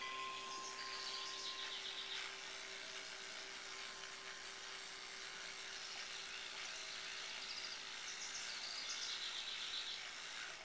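Electric toothbrush running with a steady hum as it brushes a dog's teeth.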